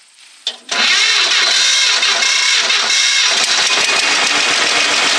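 John Deere 50 two-cylinder tractor engine being started: a click about half a second in, then loud cranking that catches about three seconds later and settles into steady, even running.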